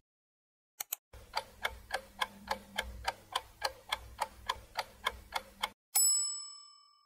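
Countdown timer sound effect: a clock ticking steadily at about four ticks a second, then a single bell ding near the end as the answer time runs out.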